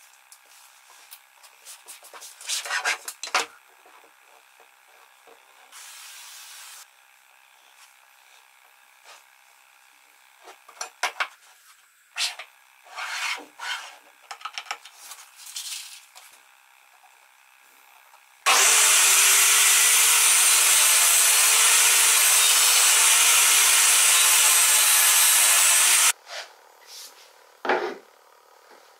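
Wooden sled parts and a square being handled on a workbench, with scattered knocks and rubs. About two-thirds of the way in, a power tool runs steadily for about seven seconds, starting and stopping abruptly; it is the loudest sound.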